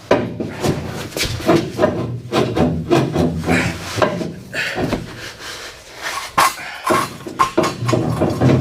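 Repeated sharp metal clanks and knocks of a breaker bar being worked on a torch-heated, seized nut.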